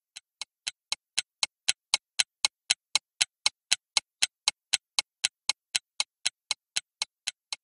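Countdown timer ticking: sharp, even ticks, about four a second, marking a timed break. They fade in over the first second, then hold steady.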